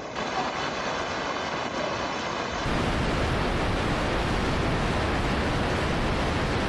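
Steady rush of water, louder and fuller from about two and a half seconds in.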